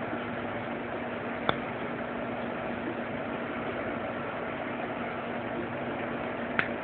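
A steady mechanical hum with hiss, broken by two short sharp clicks, one about a second and a half in and one near the end.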